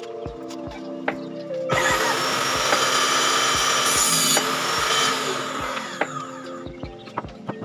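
An electric power tool cuts through a wooden board, starting abruptly about two seconds in and running for roughly four seconds before dying away. Background music with a steady beat plays under it.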